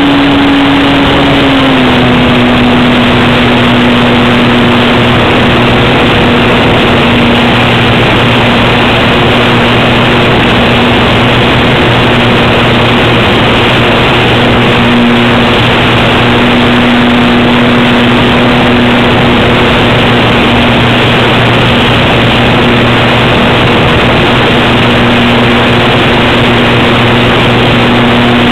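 Brushless electric motor and propeller of an RC Cub model plane running steadily in flight, a loud steady drone over rushing air, heard from the plane's onboard camera. The pitch drops slightly about two seconds in and then holds.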